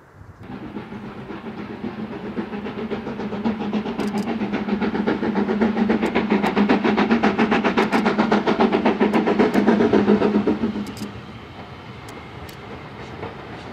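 Southern Railway U class 2-6-0 steam locomotive no.1638 approaching under steam, its exhaust beating rapidly and growing louder, then dropping away suddenly about eleven seconds in.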